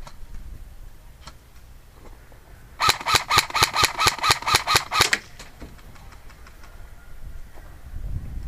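Airsoft rifle firing a rapid string of about a dozen shots, around six a second, for a little over two seconds starting about three seconds in.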